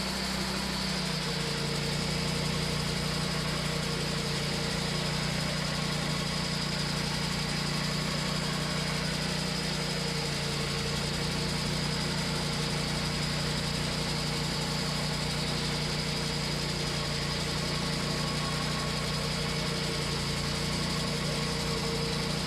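Engine of a Wood-Mizer LT40 portable bandsaw mill running steadily with an even hum.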